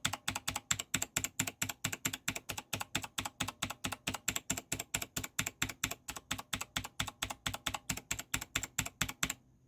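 Mechanical keyboard keys with HyperX double-shot PBT keycaps pressed in a fast, even series of clicks, about five or six a second, stopping shortly before the end. One key is fitted with a rubber O-ring to damp the keystroke and the other has none, for comparison.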